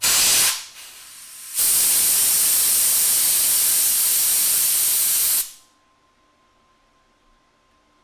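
Compressed-air blow gun hissing: one short blast, then a longer blast of about four seconds that cuts off sharply. The air cools the fresh welds on thin sheet steel so the part does not distort.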